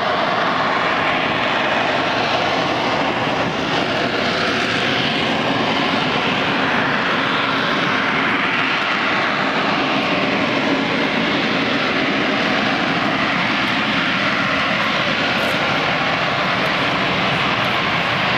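Military jet aircraft's engine noise, a loud steady rush whose tone slowly wavers up and down as the jet flies low and slowly over the airfield.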